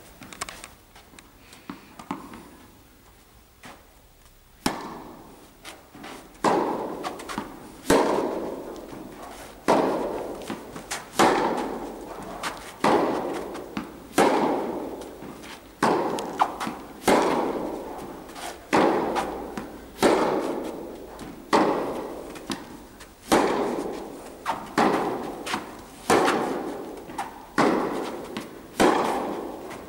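Tennis balls struck by rackets in a steady rally, a loud hit about every second and a half with smaller knocks between, echoing in an indoor tennis hall. The first few seconds are quieter before the rally hits begin.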